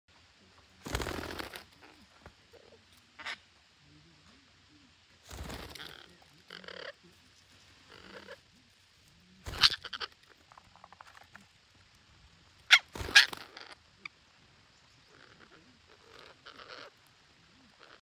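Red-breasted parakeets giving harsh squawks at irregular intervals every few seconds, the loudest a quick pair about thirteen seconds in.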